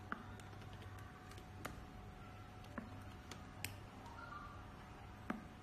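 A few scattered, sharp little clicks from a handheld video borescope being handled while its articulating probe tip is steered, over a faint steady hum.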